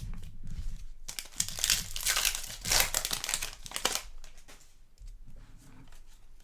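A basketball card pack's plastic wrapper crinkling and tearing as it is opened, loudest from about one to four seconds in, then softer rustling as the cards are handled.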